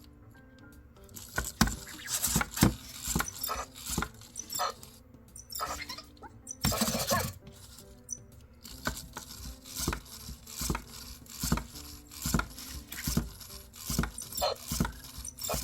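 EMO desktop robot clicking and tapping on a hard surface as its small motors drive the same movement over and over, irregular at first, then a regular tap a little faster than once a second from about halfway: the robot stuck in a repeating-motion loop after coming off its charger.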